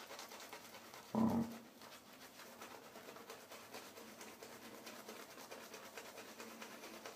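Double-edge safety razor scraping through lathered stubble on the cheek in many quick, faint strokes. A short low vocal sound from the shaver about a second in.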